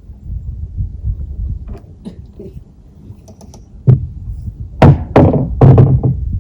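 Dull knocks and thumps, one about four seconds in and several close together near the end, over a steady low rumble.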